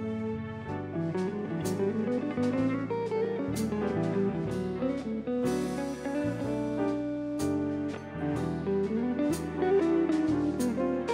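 Instrumental break in a slow jazz ballad, with electric guitar playing the melody over the band and no singing.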